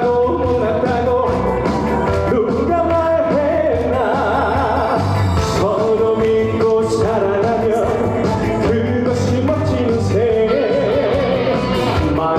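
Trot song performed live: a singer's wavering, vibrato-rich voice over an upbeat accompaniment with a steady beat.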